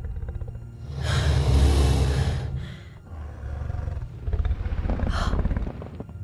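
Film sound effect of a huge dragon: a deep roar about a second in, the loudest part, followed by a lower, pulsing growl with a short noisy burst near the end.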